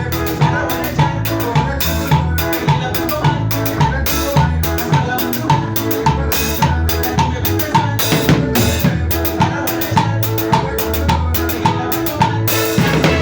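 Live band playing an instrumental passage: a drum kit keeping a steady beat with bass drum, snare and rimshots under a bass line and other instruments.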